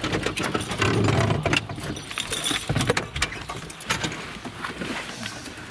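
Jingling of a dog's collar tags with scattered knocks and scrapes as the dog gets down out of a truck cab over the door step. The sounds are busiest in the first second or two and thin out after that.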